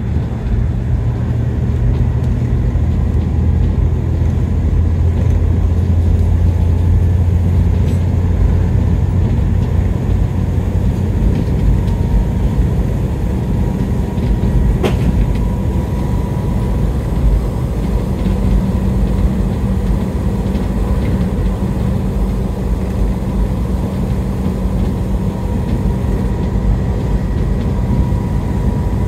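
A bus running along the road, heard from on board: a steady low engine drone with road noise, its pitch shifting up about halfway through, and a single sharp click about fifteen seconds in.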